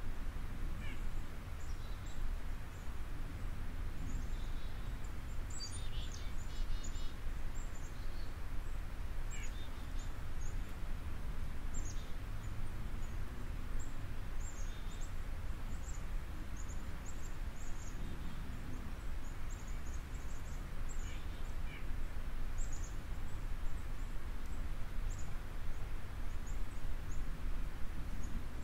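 Steady low background noise with faint, short bird chirps scattered through it.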